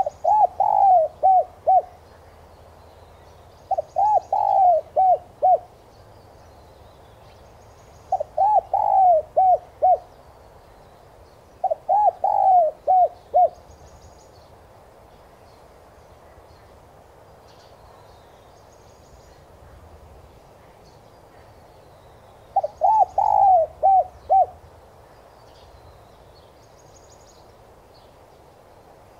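Spotted dove cooing as a lure bird: five phrases of about five quick coos each, the first coos of each phrase rising and falling in pitch, with a long pause before the last phrase.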